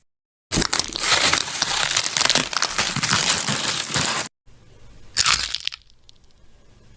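Cracking and crunching sound effect: a dense run of crackling crunches lasting about four seconds, then a quieter crackle with one short louder crunch about five seconds in.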